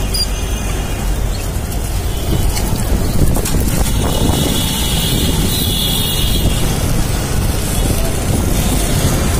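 Dust-storm wind buffeting the microphone as a loud, steady low rumble, over city street traffic, with a vehicle passing close about four seconds in.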